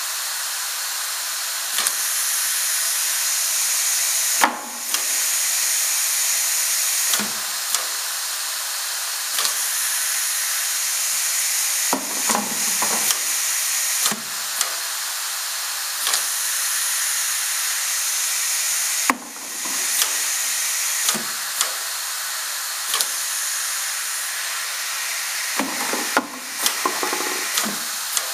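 Steady hiss of compressed air on a pneumatic bucket denester, broken every few seconds by knocks and clunks as plastic buckets are separated from the stack. The hiss drops out briefly twice.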